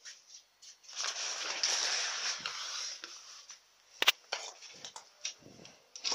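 Rustling and handling noise as a camera is pushed past cloth curtains: a noisy rush for about two seconds, then a sharp click about four seconds in, then lighter scattered rustles.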